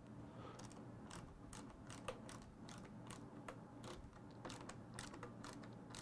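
Small precision screwdriver turning a screw down into a laptop's metal CPU heatsink bracket: a faint, irregular run of small clicks, several a second.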